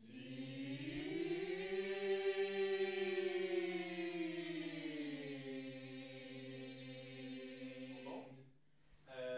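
Choir singing one long held chord without accompaniment. It swells over the first few seconds, with the upper line gliding up and then slowly sinking while the lower notes hold, and it is cut off about eight seconds in.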